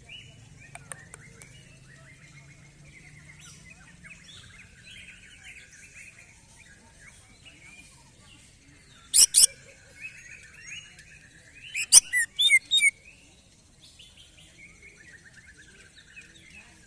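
Male cucak ijo (green leafbird) singing hard in its cage, worked up ('emosi'): a continuous chattering, varied warble, broken by loud sharp notes about nine seconds in and a quick run of about four loud chirps around twelve seconds in.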